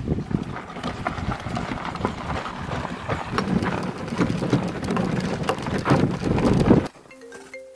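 Horse hooves clip-clopping in a fast, irregular run of knocks and clatters over rumbling, wind-buffeted noise, cutting off abruptly about seven seconds in. A few mallet-like musical notes follow.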